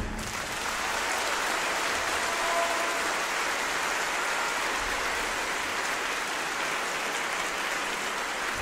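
Audience applauding, a steady even clapping.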